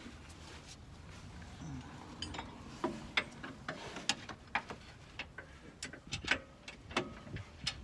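Irregular sharp metal clicks from hand tools at work on the car's suspension, starting about two seconds in and coming more often toward the end.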